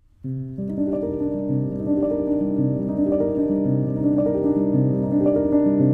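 Instrumental background music with a steady succession of notes, starting a moment after the opening.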